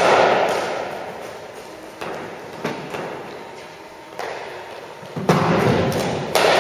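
A cricket bat hits a ball sharply right at the start. Several more thuds follow as balls bounce and strike, each with a long echo in a large hall.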